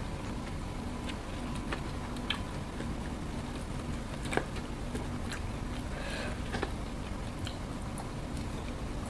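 Close-up eating sounds: chewing and scattered small clicks as rice and fried food are picked up by hand and eaten, the sharpest click about four and a half seconds in, over a steady low background hum.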